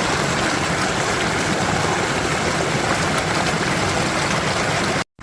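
Creek water rushing, a loud steady wash of noise that cuts off abruptly near the end.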